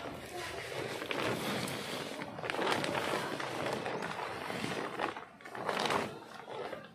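Rustling and crinkling of a woven plastic compost bag as it is gripped, lifted and shaken, with the leaf compost inside shifting.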